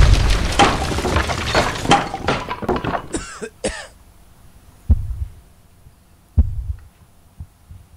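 A door blown apart by an explosion, with splintering wood and debris crashing and clattering as it dies away over about four seconds. Then two heavy low thuds about a second and a half apart.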